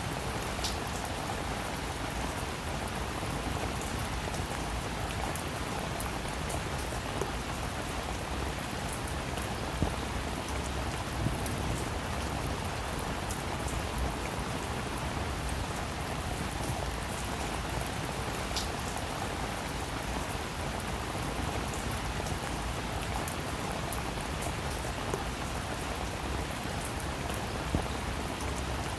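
Steady rain falling on a surface, with scattered individual drops ticking through it.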